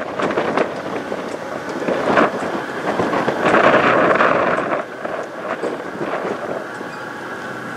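Wind buffeting the microphone in gusts, strongest around the middle and easing near the end, over the low sound of a truck.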